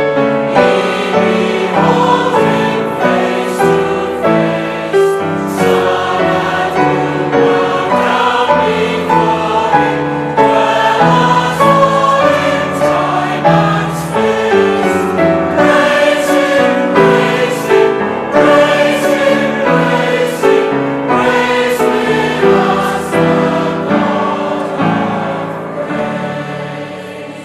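A choir singing a sacred choral piece, fading out near the end.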